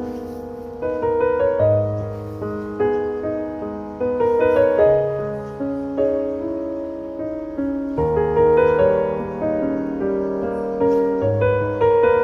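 Slow, gentle piano music: single notes and chords struck and left to fade, over a low bass note every couple of seconds.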